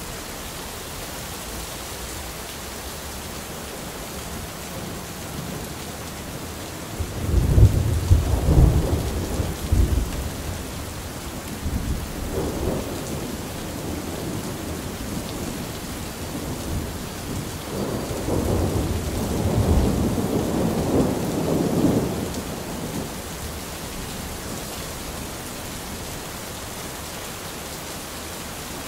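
Steady rain with thunder: a sudden loud clap about a quarter of the way in that rumbles on for several seconds, then a second long roll of thunder building and fading past the middle, over the constant hiss of rain.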